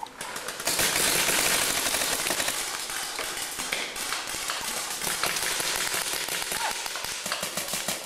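Paintball markers firing in rapid, overlapping volleys: a dense stream of sharp pops that starts about half a second in and keeps going.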